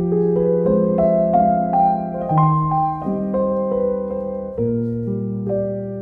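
Background piano music: a slow melody over chords that fade after each strike.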